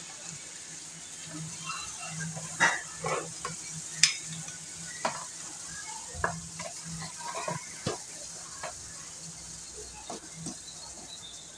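Pork bones boiling hard in a large aluminium pot, with a steady bubbling hiss. A metal ladle stirs through the pot, giving a dozen or so sharp clinks and knocks against the pot and the bones at irregular intervals.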